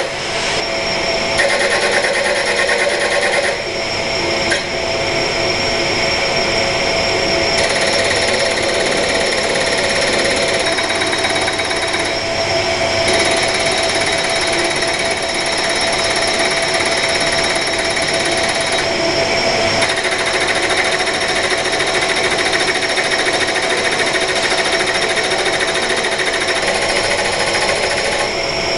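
Two τDISC direct drive servo motors indexing their arms back and forth at very high speed. The sound is a dense, rapid mechanical chatter with a steady whine, shifting in pitch and texture every few seconds.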